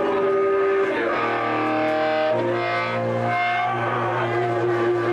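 Distorted electric guitar through an amplifier holding long sustained notes. The notes change about a second in and again past two seconds, then settle into one long steady held tone.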